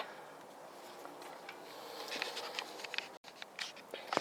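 Light metallic clicks and scraping of lug nuts being handled and started onto the wheel studs by hand, busier after about two seconds.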